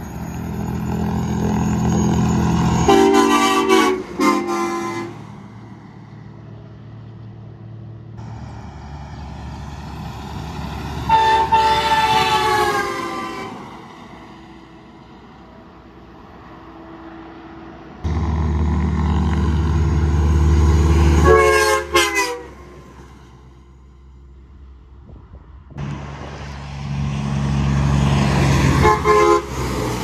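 Semi trucks passing on a highway, their diesel engines rumbling louder as each approaches. Each sounds an aftermarket train horn as it goes by, four loud multi-note chord blasts in all, some sliding down in pitch as the truck passes.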